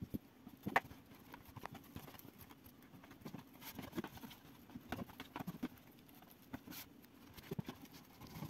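Fingers smearing margarine around the inside of a textured metal loaf tin, with irregular light taps and scrapes of fingertips and nails against the metal.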